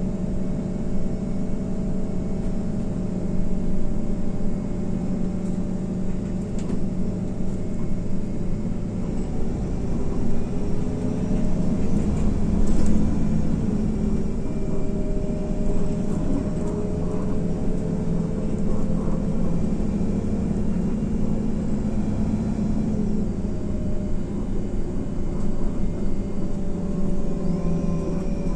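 IVECO Crossway LE bus heard from on board: its Cursor 9 engine drones steadily over road rumble, and the engine note glides up and down in pitch a few times as the bus speeds up and slows. A few short rattles come about halfway through.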